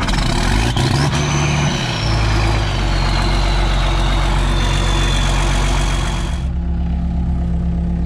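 John Deere 4555 tractor's six-cylinder diesel running just after start-up, settling into a steady idle. A high whistle climbs in the first second, then slowly sinks, and drops away about six seconds in while the engine keeps running.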